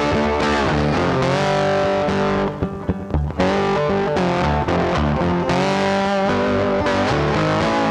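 Background music led by a distorted electric guitar, thinning out briefly about two and a half seconds in.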